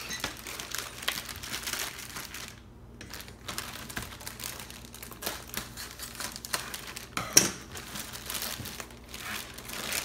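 Packaging crinkling and rustling in irregular bursts as hoop parts and sticker sheets are handled and unwrapped, with a brief lull near three seconds and one sharp click about seven seconds in.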